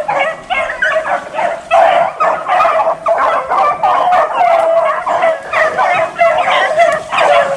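A pack of beagles baying in a continuous, overlapping chorus of repeated calls, the sound of rabbit dogs running a rabbit on its scent.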